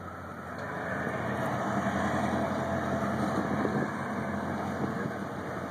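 The diesel engines of the Cyclone-class patrol ship USS Hurricane, under way, give a steady low drone. It grows louder about a second in and eases a little near the end.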